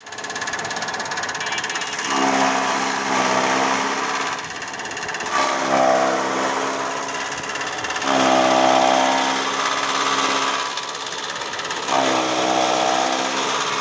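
Electric chaff cutter with a 4 hp, 220 V motor running and chopping dry straw, a steady whirring clatter of blades. About four times, for a second or two each, it grows louder and a low hum comes up that sags in pitch and recovers as straw is fed in and loads the motor.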